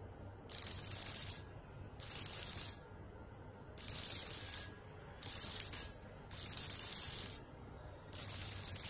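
Vibrating signal receiver of a xóc đĩa cheating kit buzzing in six evenly spaced pulses, each under a second long and about one every second and a half. The number of pulses signals which faces the coins under the bowl are showing.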